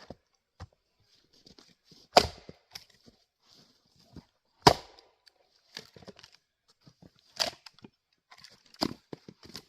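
Gränsfors Bruk Adirondack single-bit axe biting into firewood on a chopping block: four sharp chops, roughly two and a half seconds apart, with small knocks and clatter of wood between strikes.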